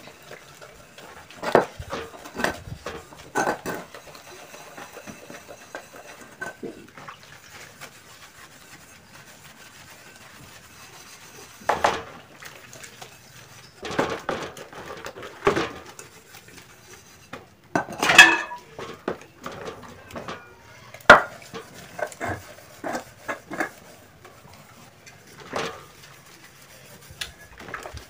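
Small stainless-steel cooking pots clinking and knocking against each other and the plastic washing basin as they are scrubbed with steel wool in soapy water. The knocks come irregularly in clusters, with a quieter lull about a third of the way in and the sharpest clanks in the second half.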